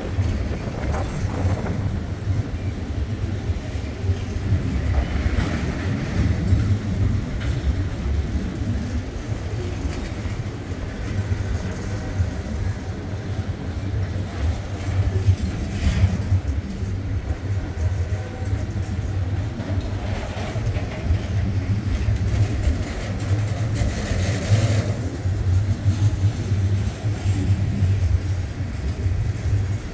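Loaded Herzog freight cars of a CSX train rolling past: a steady low rumble of wheels on rail.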